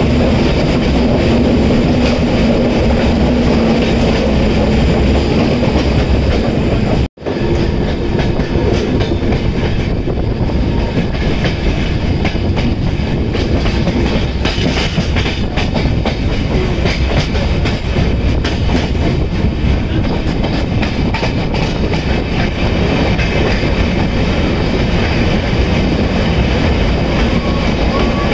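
Passenger express train running on its rails: steady wheel and track noise with a clickety-clack of wheels over rail joints. A low steady hum runs through the first few seconds, and the sound drops out suddenly for an instant about seven seconds in.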